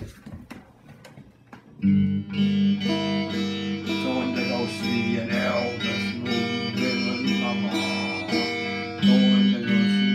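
Electric guitar music, starting about two seconds in after a few faint taps, with a steady rhythm. A man's voice sings briefly over it in the middle and near the end.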